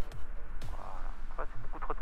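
Background electronic dance music with a steady kick-drum beat, about two beats a second; a voice comes in near the end.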